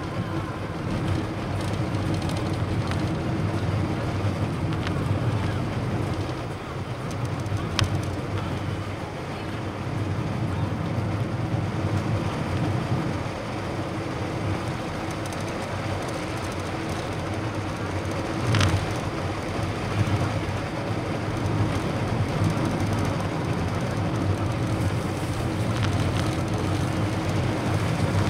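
Steady road noise from a moving car, a low engine and tyre drone with wind noise. Two brief knocks stand out, one about a quarter of the way through and one about two-thirds through.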